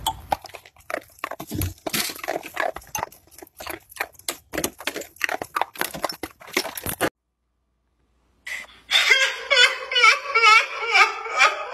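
A dog biting and chewing icicles, a quick irregular run of cracks and crunches for about seven seconds. After a brief gap, a woman's high, wavering fake sobbing takes over near the end.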